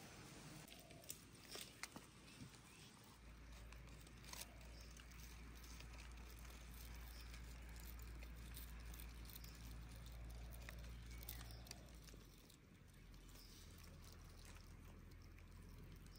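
Near silence: faint outdoor ambience with a few soft ticks in the first few seconds and a low rumble underneath.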